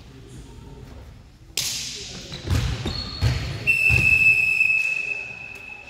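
Volleyball play in a sports hall: a sharp hit of the ball about a second and a half in, then several heavy thuds of the ball on the floor. A long, steady whistle blast follows, typical of a referee's whistle ending the rally.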